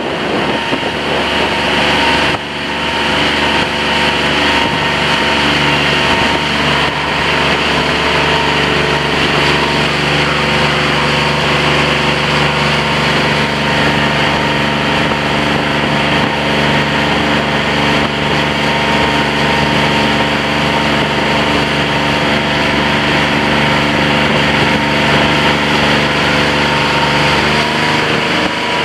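Small fishing boat's motor running steadily under way, its even engine note mixed with wind and water rushing past the hull; the note changes near the end.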